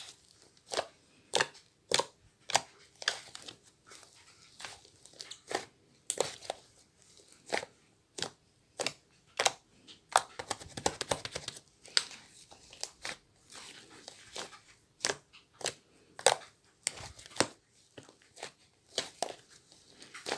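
Close crinkling and sharp clicks at an uneven pace, roughly one to two a second, bunching into a denser crackle about halfway through.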